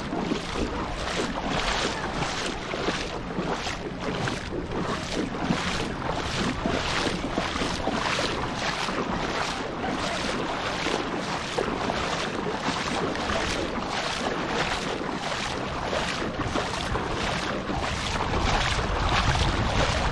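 Shallow seawater sloshing and splashing right at the microphone in a steady rhythm, about two surges a second, as someone wades with the camera at the water's surface. Wind buffets the microphone underneath.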